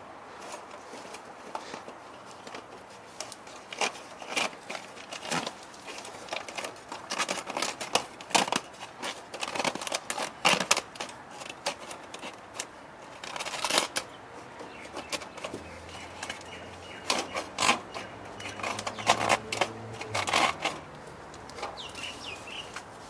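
Chicken wire mesh rattling and clicking in irregular bursts as it is twisted and pressed into place by hand.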